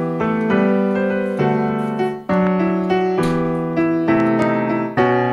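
Background keyboard music: held piano-like notes and chords, changing about twice a second.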